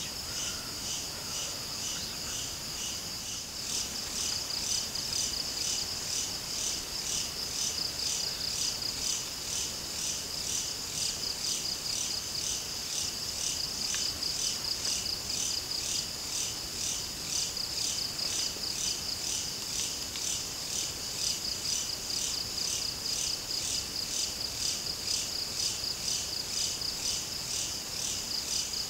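A chorus of crickets chirping at night, a steady high-pitched pulsing trill that never stops and grows a little louder about three seconds in.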